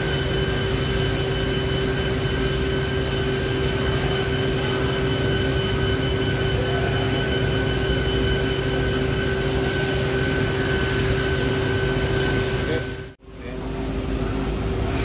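Steady mechanical hum with several high, steady whine tones from a powered-up Mazak FH-5800 horizontal machining center. About two seconds before the end the sound cuts out for a moment, then a plainer hum without the whine returns.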